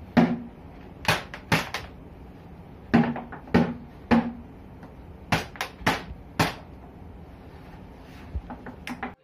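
A clear plastic jar slapped by hand and plastic water bottles knocked together: about a dozen sharp, irregularly spaced hollow knocks and clicks, some with a low thud.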